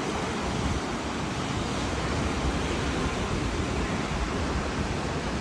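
Hurricane winds blowing steadily, with gusts buffeting the microphone in a low, uneven rumble.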